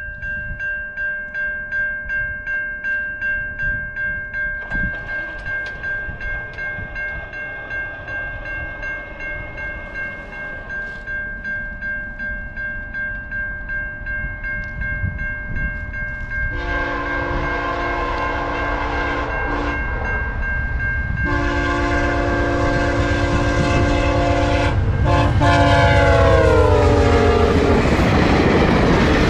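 Level-crossing warning bell ringing in a steady beat. From about halfway, a VIA Rail passenger locomotive's horn sounds several blasts for the crossing, and the last long blast drops in pitch as the train passes. Wheels rumble and clack over the rails near the end.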